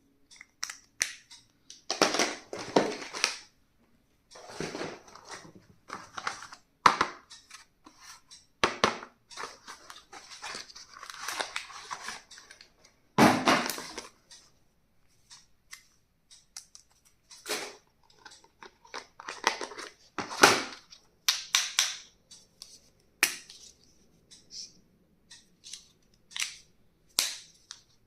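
Stationery packaging being opened and handled by hand: irregular crackles, clicks and rustles in short bursts with brief pauses between them.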